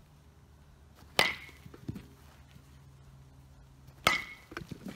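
Rawlings Quattro baseball bat hitting soft-tossed baseballs twice, about three seconds apart. Each contact is a sharp crack with a brief high ping ringing after it.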